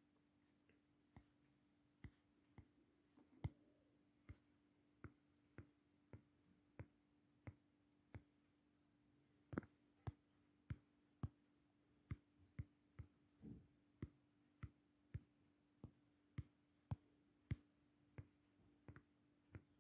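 A faint series of sharp clicks, roughly one or two a second and slightly uneven, over a low steady hum; otherwise near silence.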